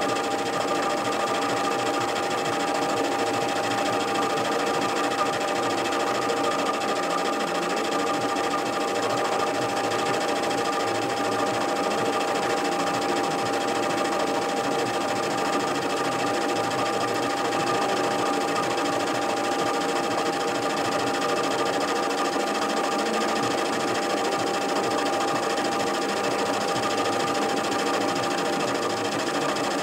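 Metal lathe running with a carbide-tipped tool taking an interrupted cut along a thin metal bar: a steady machine noise with a constant high whine.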